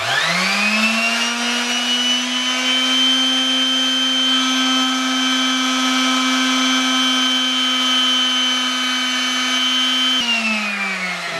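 Electric palm sander switched on and spinning up to a steady hum and whine, sanding down the cut edge of a glass jar cylinder. About ten seconds in it is switched off and winds down, its pitch falling.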